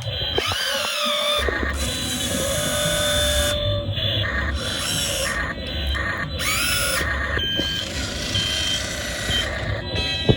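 Hydraulic pump motor of a radio-controlled Komatsu PC200-8 model excavator whining as it works, its pitch rising and falling with the load, starting and stopping abruptly several times.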